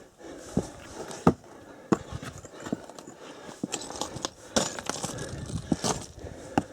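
Footsteps crunching and scraping over loose volcanic rock on a steep climb, in an uneven rhythm of roughly one to two steps a second.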